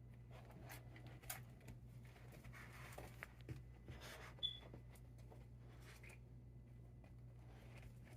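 A single short, high chirp from a smoke detector, its low-battery warning, about halfway through. Faint scattered clicks come before and after it.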